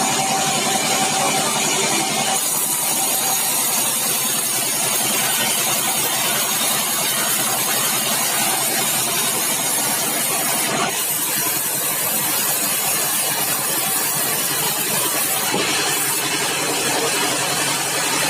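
Sawmill machinery running: a steady engine-like drone with a high hiss. The tone shifts about two and a half seconds in and again about eleven seconds in.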